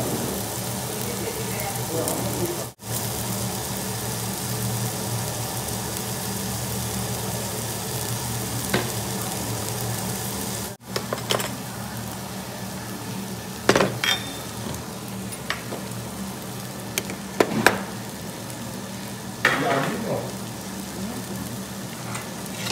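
Marinated duck meat sizzling steadily on a tabletop grill plate. Metal tongs click against the grill a few times in the second half as the pieces are turned.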